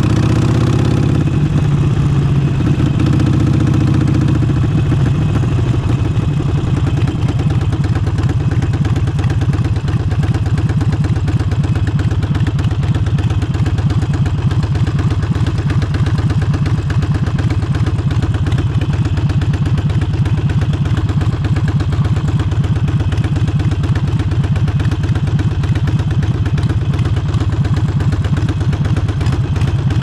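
Harley-Davidson Forty-Eight's air-cooled 1200 cc V-twin running through a Vance & Hines exhaust, a steady, low, rapid exhaust pulse. The note shifts in the first few seconds, settles about four seconds in and then holds steady.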